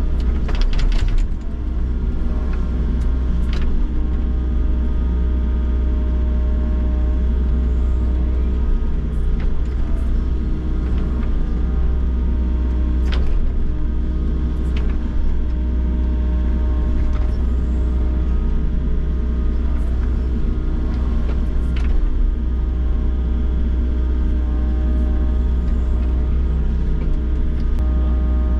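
Volvo excavator's diesel engine running under load with a steady deep drone, heard from inside the cab, with occasional knocks as the bucket digs into the soil.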